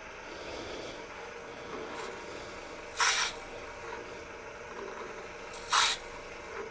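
Wood lathe running steadily while a hand-held 3/8-inch drill bit bores into the end of the spinning twig pot in two short bursts of cutting noise, about three seconds in and again near the end.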